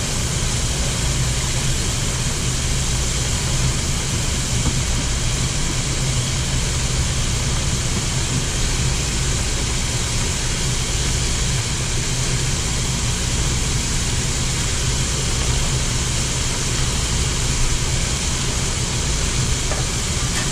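Battered shrimp sizzling steadily in hot oil in an electric deep fryer, with a low hum underneath.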